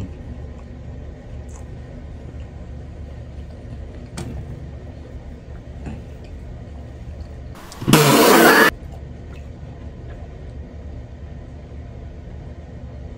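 A steady low hum with faint mouth and eating sounds from a person chewing. About eight seconds in comes one loud rushing noise that lasts about a second.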